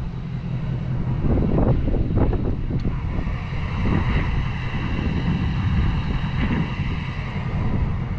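Wind buffeting the microphone: a heavy, gusting low rumble.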